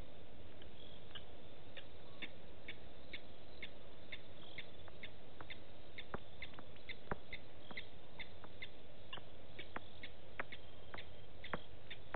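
Short, high chirps of a small animal repeating about twice a second over a steady hiss, with a few sharp clicks scattered through.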